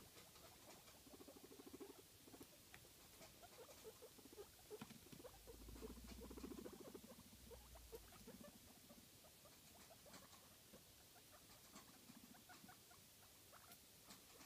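Guinea pigs making several short, low, buzzing rumbles, each lasting about a second, with soft squeaks and small clicks between them.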